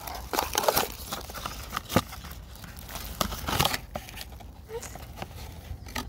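Small cardboard box of an LED filament bulb being opened and handled: paper flaps rustling and scraping, with crinkling and several sharp clicks, the loudest about two seconds in.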